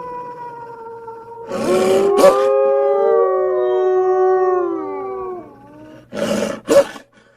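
Wolf howls, presented as the extinct Hokkaido (Ezo) wolf: several overlapping howls that slide and fall in pitch, each held for a few seconds. Two short rough calls come about a second and a half in, and two more near the end.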